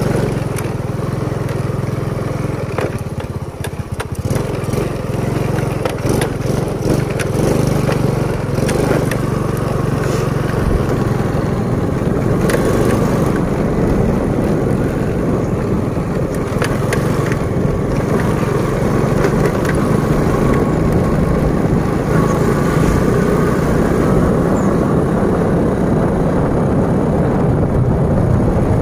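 Motorcycle engine running steadily while riding, with scattered knocks and rattles from the bumpy, rutted dirt road, mostly in the first half.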